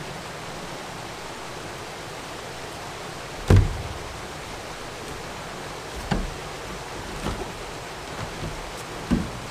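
A handful of sharp knocks, the loudest about three and a half seconds in and smaller ones later, over a steady rushing background noise.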